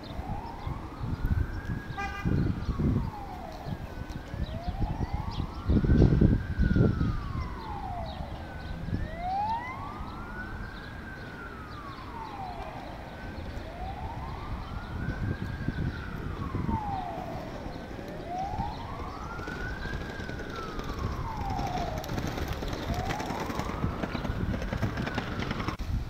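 A siren wailing, its pitch rising and falling slowly about every four and a half seconds, over low rumbling noise that is loudest about six seconds in.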